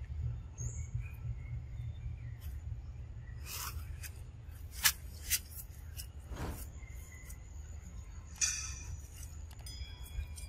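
Outdoor forest ambience: a steady low rumble with a few sharp clicks and rustles, the loudest about five seconds in, and faint high bird calls in the second half.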